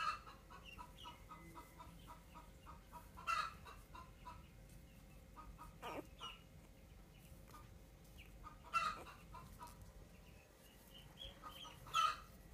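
Rapid runs of short, faint animal calls, about five a second, broken by four louder, sharper calls and one falling call about halfway through.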